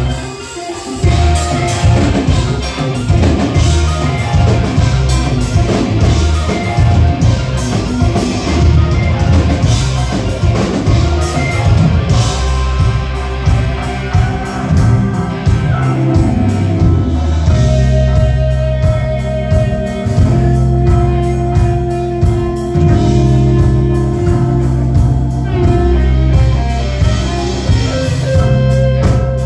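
Rock band playing live, with electric guitar, bass guitar and drum kit.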